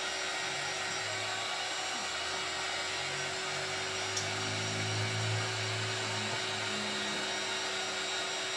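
Steady whirring hiss of a running motor, even throughout, with a faint low hum swelling around the middle.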